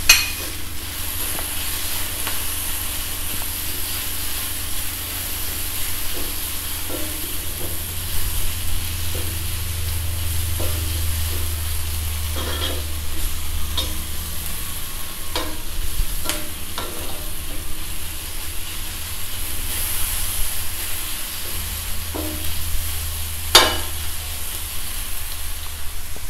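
Chopped vegetables and paneer cubes sizzling gently on a hot iron tawa while a spatula stirs them, scraping and knocking against the pan now and then; the sharpest knock comes near the end.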